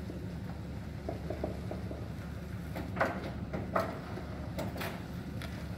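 Pickup truck engine running steadily at low speed while it tows an empty flatbed trailer, with a few sharp metal clanks from the trailer about three and four to five seconds in.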